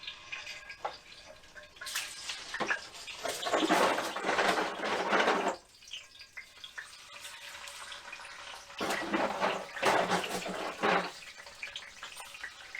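Running water, in two rushes of a few seconds each with a quieter stretch between.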